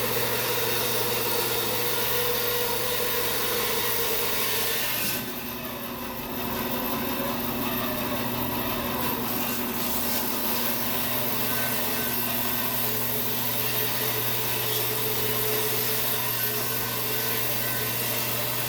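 Bandsaw running with its blade cutting lengthwise through a log, over a steady motor hum. The cutting noise drops briefly about five seconds in, then carries on.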